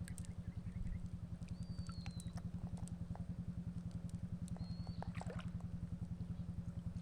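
A small engine running steadily with a fast, even beat, and a couple of short whistled bird calls above it.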